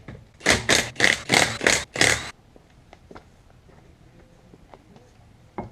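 Six quick rasping scraping strokes in a row, about three a second, followed by a few faint ticks and clinks and a single sharp knock near the end.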